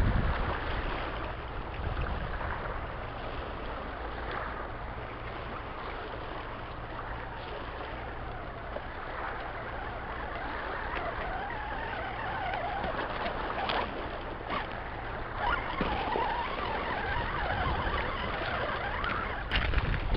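Faint whine of a radio-controlled crawler's electric motor and gears, wavering up and down with the throttle, over a steady low rumble, with scattered light clicks.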